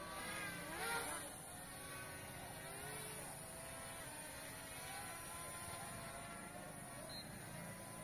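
L900 Pro SE MAX quadcopter's brushless motors and propellers buzzing in flight, the pitch wavering up and down as the motor speeds change, briefly louder about a second in.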